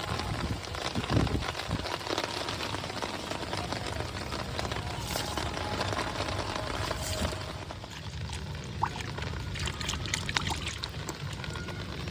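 Water pouring and splashing, steady at first and quieter from about eight seconds in, with a few light knocks near the end.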